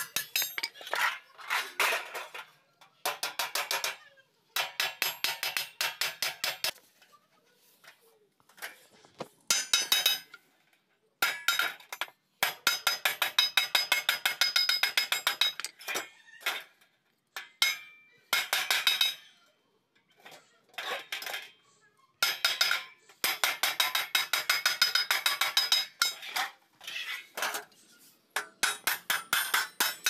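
Wooden mallet rapidly tapping thin galvanized steel sheet against a steel edge to fold it. Sharp metallic taps come in bursts of a few seconds with short pauses between, and the sheet rings briefly after each tap.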